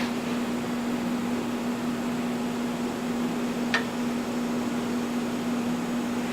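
Steady machine hum with an even hiss behind it, one steady tone throughout, like a fan or motor running. A single light click sounds a little before four seconds in.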